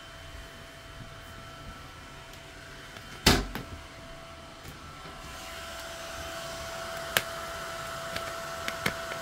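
Small high-speed fan of a 1U active server CPU cooler, together with the PC's case fans at full speed: a steady whir with a few high whining tones, getting louder about halfway through. A single sharp knock about three seconds in. The fans are running flat out because the cooler cannot keep the CPU cool even at idle.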